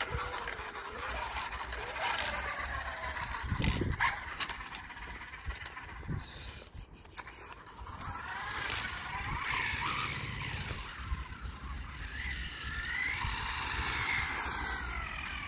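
WLtoys A959-B RC car's brushless electric motor whining in glides that rise and fall as the throttle is worked, over a rough rushing noise, with a couple of sharp knocks about four seconds in.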